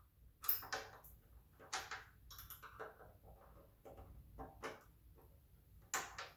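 Small flathead screwdrivers clicking and scraping against the metal retaining clip of a hood strut's end fitting as it is pried open. Half a dozen separate sharp metal clicks, the loudest about half a second in.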